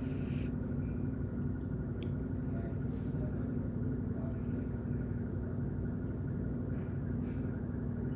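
Steady low background hum and rumble with a constant pitch, with a few faint ticks.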